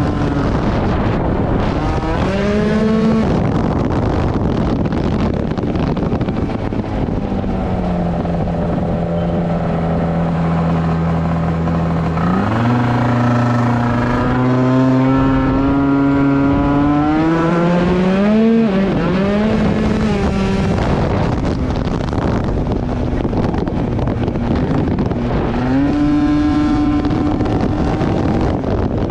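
Tuned 94cc two-stroke scooter engine (Polini Big Evo kit) running hard, its pitch climbing, holding and dropping again several times with the throttle, over a rush of wind and road noise.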